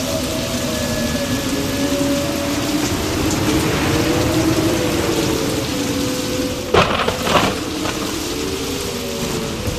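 Steady rain with two sharp thunder cracks close together about seven seconds in, over low, slowly wavering tones.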